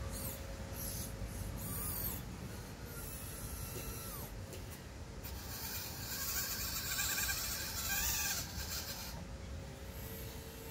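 Small electric gear motors of a radio-controlled Bruder toy mini excavator whirring in several short runs of wavering pitch as the boom and bucket move. The longest and loudest run comes about six to nine seconds in.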